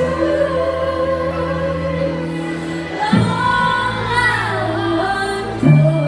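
A woman singing live into a microphone over backing music, both amplified through a stage PA system.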